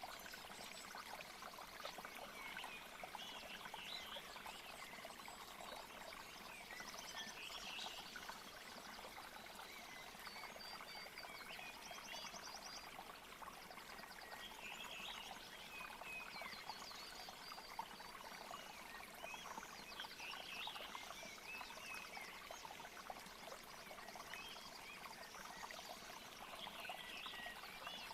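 Nature soundscape: steady running water, like a stream or waterfall, with many short bird chirps and trills over it.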